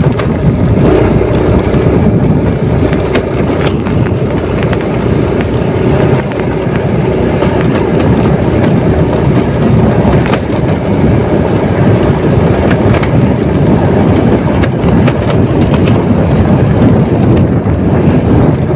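Motorcycle riding along a rough dirt track: steady engine and wind noise on the microphone, with scattered knocks and rattles from the bumpy ground.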